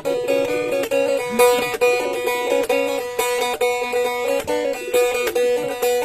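A faglung, the Blaan two-string lute, playing a quick plucked melody over a repeatedly struck drone note.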